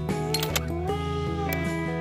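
Background music led by guitar, with a held note that bends up and back down about a second in.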